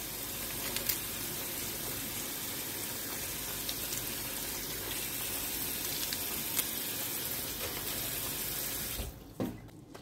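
Kitchen tap running steadily into a stainless steel sink over freshly washed frisée lettuce, then shut off abruptly about nine seconds in, followed by a short knock.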